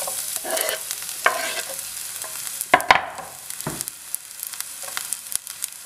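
Chopped garlic dropping into hot olive oil in a frying pan and sizzling with a dense crackle. A few scrapes and knocks of the cutting board against the pan come through, the loudest pair about three seconds in.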